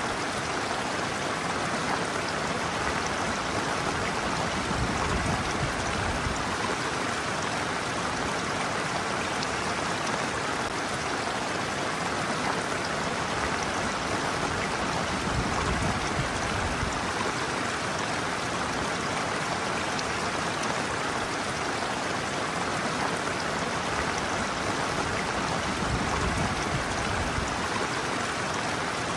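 Shallow stream water running and splashing over a person's feet on a sloping streambed: a steady rushing flow, with occasional low swells.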